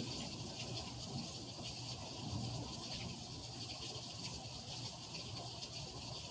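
Steady rain falling during a thunderstorm, with a low rumble underneath.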